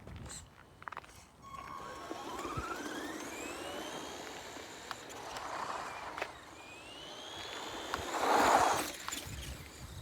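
RC car's electric motor whining and rising in pitch as it speeds up, about a second and a half in and again about six and a half seconds in. A loud burst of rushing noise comes near the end.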